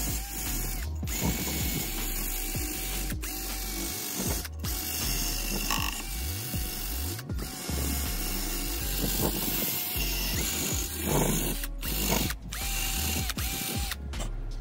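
Handheld rotary tool spinning a brass wire brush against the cast metal end cover of an electric motor: a steady motor whine under scratchy bristle noise as corrosion is scrubbed off, cut by several brief gaps.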